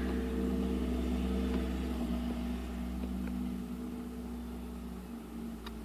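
A steady low mechanical hum with several held tones, slowly fading, and one faint click near the end.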